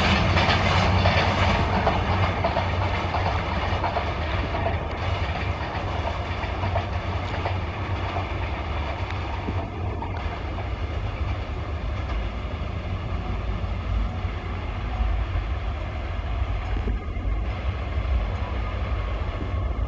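Intercity passenger train with PT INKA coaches running away over the rails, the wheel-on-rail noise loudest at first and fading over the first few seconds as it recedes. After that a steady low rumble continues.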